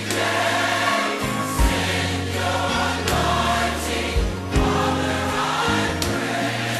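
Music with a choir singing over held bass notes and a few low drum thumps.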